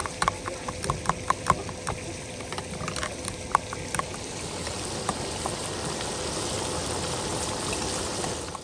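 A metal spoon clicking repeatedly against a glass bowl as a thick yogurt masala is stirred, then, from about halfway, a steady sizzle of chicken pieces and potatoes frying in oil in a wok.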